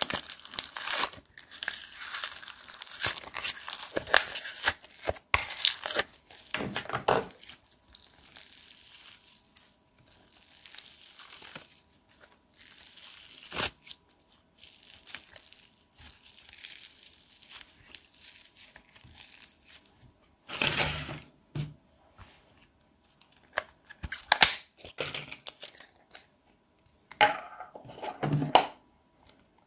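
Yellow foam-bead clay being squeezed and torn apart by hand, a dense crackling and crunching of the tiny foam beads. The crackling is thick at first, softens to a faint hiss in the middle, then comes back as a few separate louder crunches near the end.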